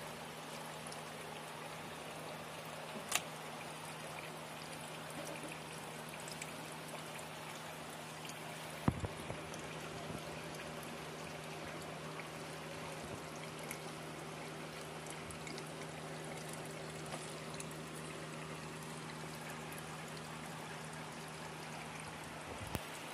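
Water trickling and pouring steadily into an aquaponics fish tub, over a steady low hum, with a sharp knock about three seconds in and another about nine seconds in.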